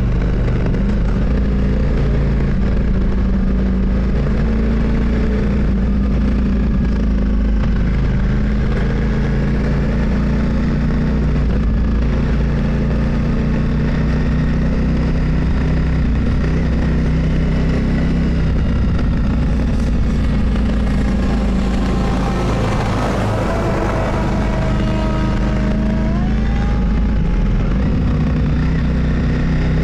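Motorcycle engine running steadily under way, with road and wind noise. There is a brief swell of rushing noise about two-thirds through and a few rising pitch sweeps near the end.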